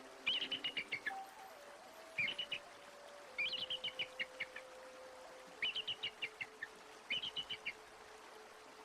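A bird calling in five short phrases of rapid, high chirps that fall slightly in pitch, over a faint held musical tone that steps lower and fades.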